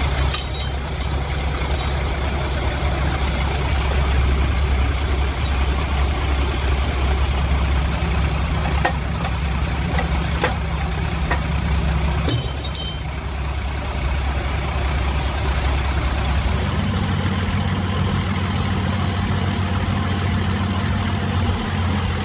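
Heavy diesel engine of log-loading machinery running steadily, with a few short knocks around the middle and a brief high-pitched hiss just after. About three quarters of the way through, the engine note steps up and holds higher.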